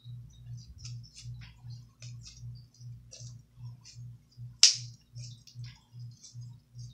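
Slime mixed with Kinetic Rock being kneaded and squeezed by hand, giving irregular small wet clicks and crackles, with one much louder snap about two-thirds of the way through. Under it runs a low hum that pulses about four times a second.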